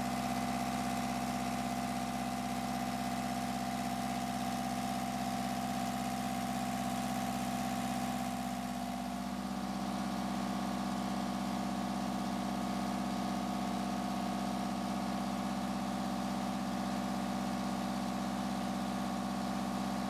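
Kubota V2203 four-cylinder diesel engine running steadily at an even speed on a test stand. Its tone shifts slightly about nine seconds in, as it is heard at its short upright exhaust pipe.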